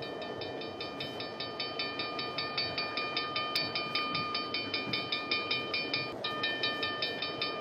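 Cartoon steam train sound effect as the locomotive pulls in: a steady rumble under a fast, even clatter of ringing metallic strokes, several to the second, growing slowly louder with a short break just after six seconds.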